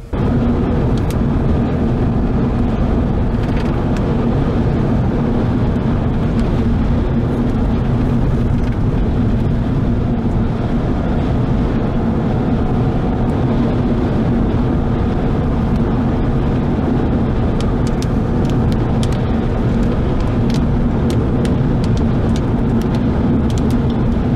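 Steady road and running noise of a car being driven, with a low, even hum and a few faint clicks. It starts suddenly and holds level.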